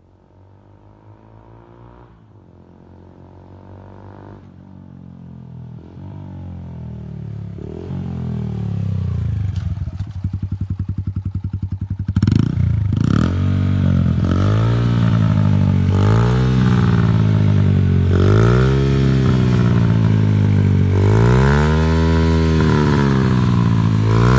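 Yamaha YBR 125's single-cylinder four-stroke engine through an Akrapovič exhaust with the dB-killer removed. First it comes closer, growing steadily louder as the engine pitch rises and falls. From about halfway it is revved repeatedly while standing still: a quick rise and fall in pitch every second or two, loud throughout.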